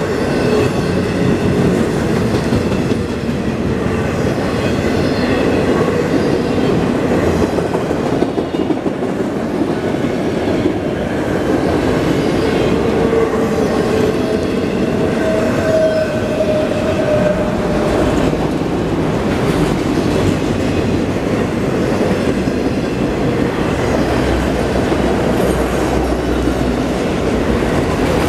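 CSX autorack freight cars rolling past close by at speed: a steady loud rumble and clatter of steel wheels on the rails, with a thin squealing tone that rises and fades about halfway through.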